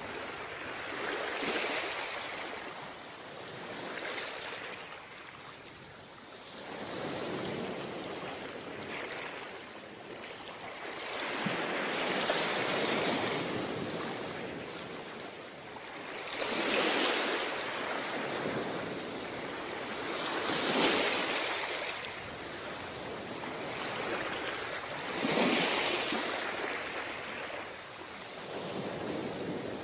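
Ocean waves breaking and washing onto a beach, the surf swelling and falling back every few seconds, with the strongest breakers about two thirds of the way through.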